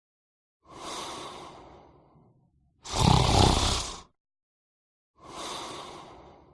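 A person snoring: one loud snore about three seconds in, between two quieter breaths that fade away, in a slow, regular breathing rhythm.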